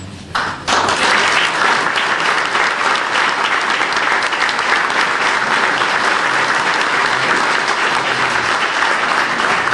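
Audience applauding, breaking out within the first second and going on steadily.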